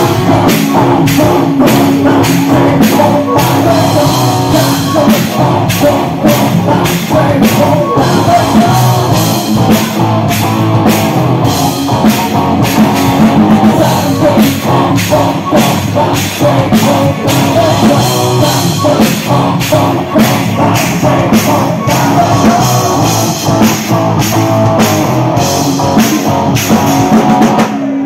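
Live rock band playing loud, with electric guitars over a steady drum-kit beat.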